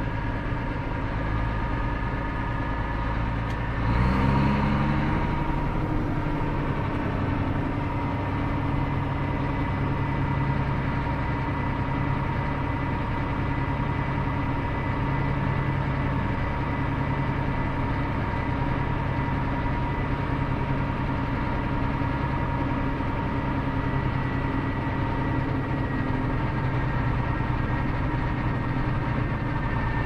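Vehicle engine running steadily, heard from inside the cab, with a brief rise in engine pitch and loudness about four seconds in.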